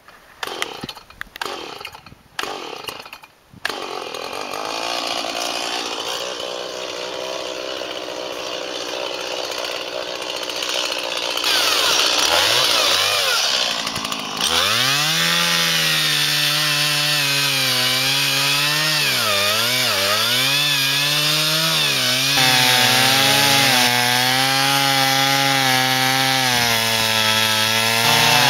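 Gasoline chainsaw that starts about four seconds in after a few short sounds, runs steadily, and then runs at high revs from about fifteen seconds in, its pitch dipping and recovering again and again as it cuts into a stump of resin-soaked pine fatwood.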